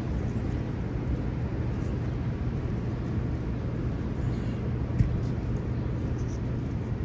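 Downtown street ambience: a steady low rumble of traffic with a steady low hum under it, and a single sharp knock about five seconds in.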